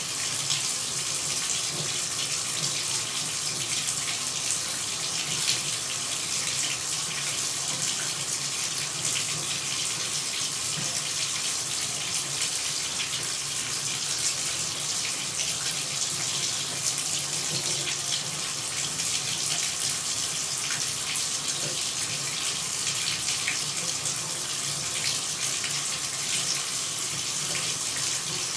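Running water pouring steadily: an even, unbroken rushing hiss, strongest in the high range.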